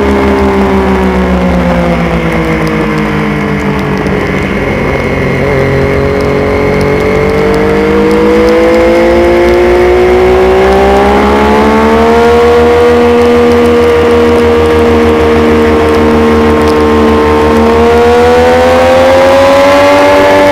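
Onboard sound of a 600cc supersport race motorcycle's engine: it drops in pitch as the bike slows for a corner, then climbs steadily as it accelerates out, holds at a steady pitch, and rises again near the end under hard acceleration.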